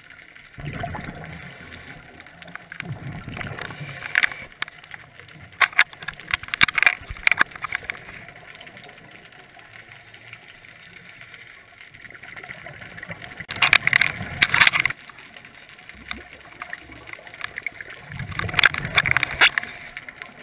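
Scuba regulator breathing heard underwater: three bursts of crackling exhaust bubbles a few seconds apart, each after a softer rush of inhaled air, over a faint steady hiss.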